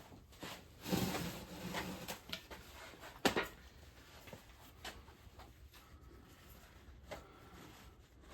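Light clicks and knocks of metal engine parts being handled on a bench. There is a short rustling stretch about a second in and a sharp click about three seconds in.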